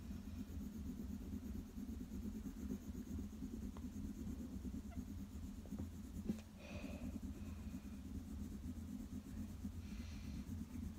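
Graphite pencil shading on paper: a steady scratching of quick strokes, with one sharp tick about six seconds in.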